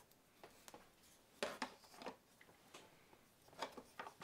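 Faint, scattered clicks and taps of paintbrushes and a plastic paint palette being handled while painting, with a small cluster of taps about a second and a half in and another near the end.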